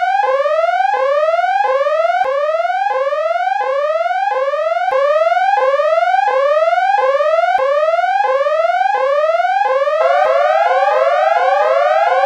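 Electronic synth sound effect: a single tone sliding upward again and again, about one and a half slides a second, the slides coming faster near the end.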